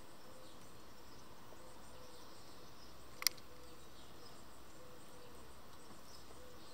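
Faint, steady outdoor background hiss with scattered faint high sounds, broken by a single sharp click about three seconds in.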